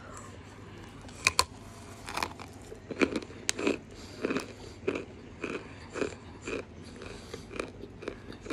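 A mouthful of white chalk being bitten and chewed close to the microphone. There are two sharp cracks just over a second in, then steady crunchy chewing at roughly two chews a second.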